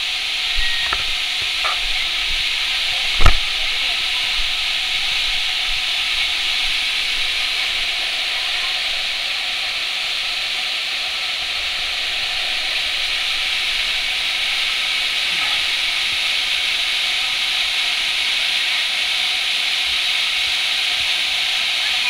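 Steady hiss of a waterfall's falling water, with one sharp knock a few seconds in.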